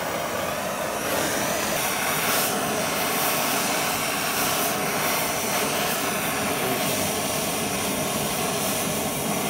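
Handheld gas torch burning with a steady hiss of flame, heating a steel bracket so it can be bent.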